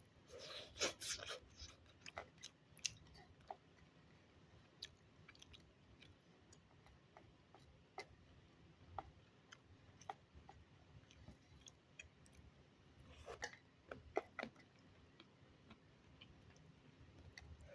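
A person chewing and eating omelette close to the microphone: soft, scattered mouth clicks and smacks, with denser bursts of eating sounds about a second in and again around two-thirds of the way through.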